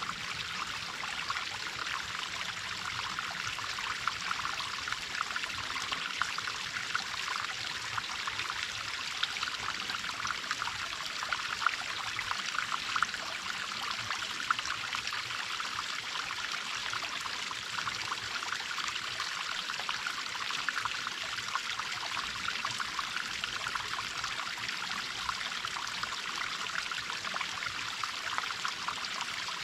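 A mountain-stream waterfall, water falling and splashing steadily. It makes a bright, even hiss full of fine splashes, with little deep rumble.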